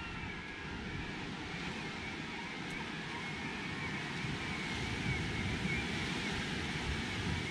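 Wind buffeting the microphone over a steady outdoor rushing noise, with faint warbling high tones throughout; it grows a little louder in the second half.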